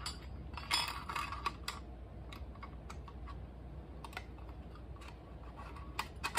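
Light clicks and taps of a security camera's aluminum housing and its Cat 5 cable being handled as the cable is fed through the housing. A quick cluster of clicks comes about a second in, then scattered single clicks, and a few more near the end.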